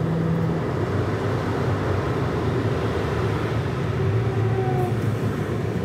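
Steady road and engine noise heard inside a car's cabin while it drives along a highway.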